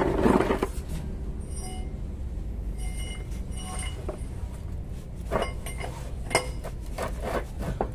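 Metal tools and parts clinking against a truck gearbox's bell housing and clutch linkage: light, irregular metallic clinks, some ringing briefly, over a steady low hum, with a louder rustle in the first half second.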